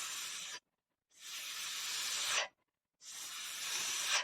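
A voice making the phonics sound of the letter S: a long hissing "sss" repeated three times, each about a second long with short pauses between.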